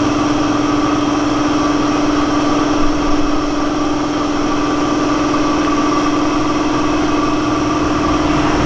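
Small two-stroke engine of a TVS Champ moped running steadily at idle with an even, unchanging pitch, running again after its carburetor was cleaned and fixed.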